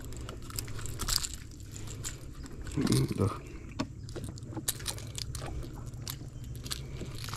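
Scattered light clicks and rattles of a metal fish lip-gripper and lure hook being handled on a landed mangrove jack, with a dull thump about three seconds in, over a low steady hum.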